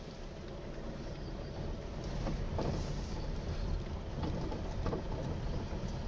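Cars driving through a shallow river ford: a steady engine rumble with water washing and splashing around the wheels, a few short knocks, and a little wind on the microphone. The sound grows slightly louder about two seconds in.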